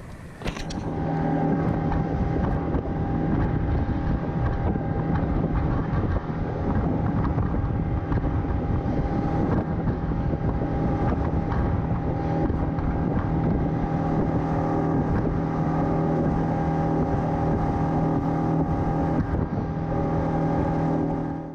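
Fishing boat under way: its outboard motor runs at a steady cruising speed, with wind and water rushing past the hull. It starts about a second in and cuts off suddenly at the end.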